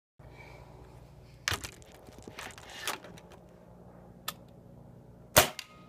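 Benjamin Summit .177 break-barrel air rifle with a silencer firing once: a single loud, sharp crack about five seconds in, with a few lighter clicks and rustles before it.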